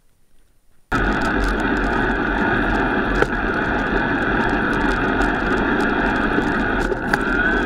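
Haibike Xduro FatSix electric fat bike under way in snow, heard from close to the frame: a steady rush of tyres, drive and wind with a constant whine in it, starting abruptly about a second in after near quiet.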